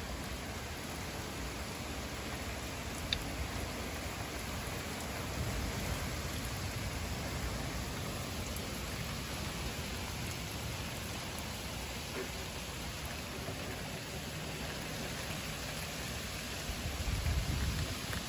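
Heavy thunderstorm rain pouring steadily, an even hiss of downpour on pavement and cars. A low rumble swells briefly near the end.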